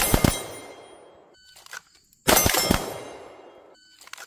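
Several pistols firing together in a draw-and-double-tap drill: a quick volley of shots, each with a trailing echo, then a short electronic beep from a shot timer about a second and a half in, another volley of shots about a second later, and another beep near the end.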